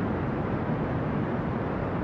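Brown noise: a steady, deep, even hiss, heaviest in the low end and thinning out toward the top, with no changes.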